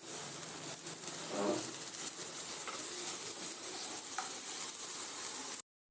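Chopped onion, carrot and capsicum sizzling in butter in a frying pan: a steady high hiss that cuts off abruptly near the end.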